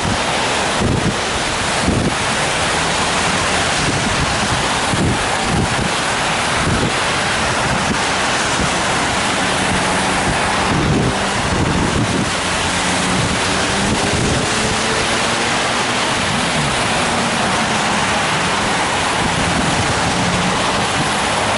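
Steady rain falling on an umbrella held overhead, mixed with the hiss of car tyres on a wet multi-lane road; the rain is getting heavier.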